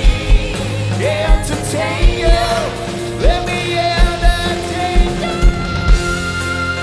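Live rock band playing with a singer, a kick drum hitting regularly and a voice sliding up into long held notes.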